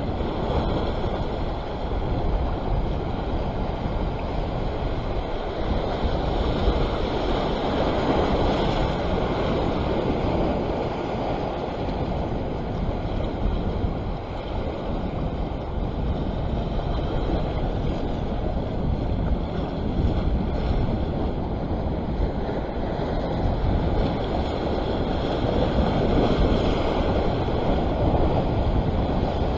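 Wind buffeting the microphone over the steady wash of sea waves against rocks, swelling and easing slowly.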